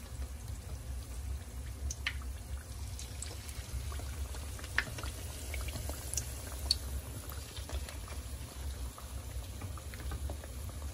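Cornstarch-and-egg coated chicken strips frying in hot oil in a pan: a soft steady bubbling hiss with scattered small pops and crackles. A steady low hum runs underneath.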